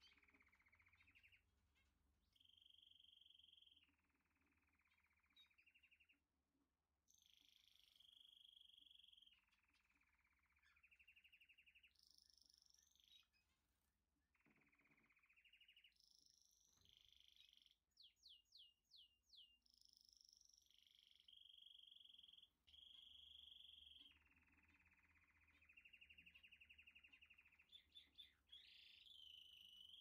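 Faint chorus of steady, high trilling animal calls, with a bird's quick run of five or six falling notes about two-thirds of the way through and a few more just before the end.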